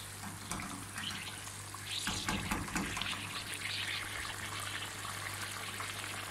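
Thick achar gosht gravy bubbling in a karahi on a gas burner, with many small pops and spits. It gets louder about two seconds in, over a steady low hum.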